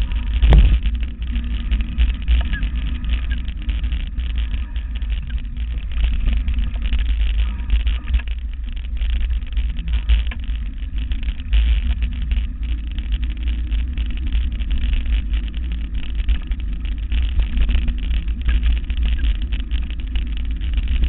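Steady low wind rumble on the microphone and constant rattling of a mountain bike rolling fast over a rough dirt trail, with a sharper knock about half a second in.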